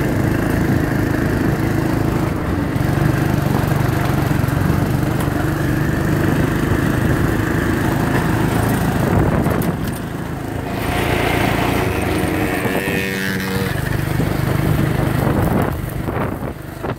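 Small engine of an off-road go-kart running while being driven. Its note dips about ten seconds in, then picks up again.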